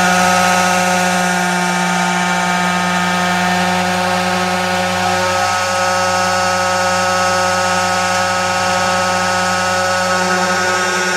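Tractor-driven water pump running under load, making a steady high whine over the tractor engine's low drone. The whine sinks slightly in pitch over the first few seconds.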